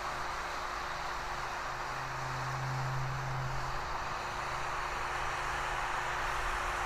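Heat gun with a plastic-welding tip blowing steadily: a constant airy hiss over a low motor hum, as it melts HDPE rod into the seam.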